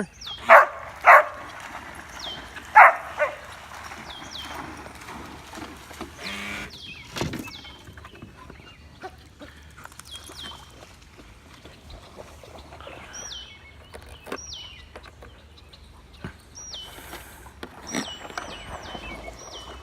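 A dog barks a few short times in the first three seconds, then lower-level outdoor sound follows with repeated short, high falling chirps.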